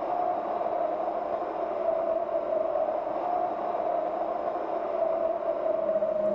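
A steady, airy drone in a soundtrack, wavering slightly in pitch, with no beat.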